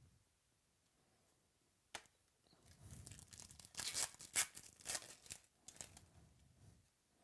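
A sharp click about two seconds in, then a trading-card pack's foil wrapper being torn open and crinkled for about four seconds.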